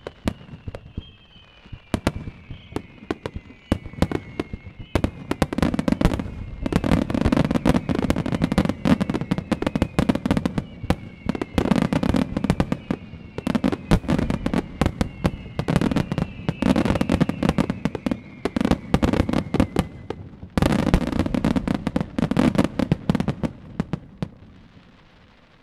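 Rapid-fire starmine barrage of aerial firework shells launching and bursting in quick succession: a dense run of booms and cracks over a rolling rumble, with several falling whistles through the first two-thirds. It thins out and fades just before the end.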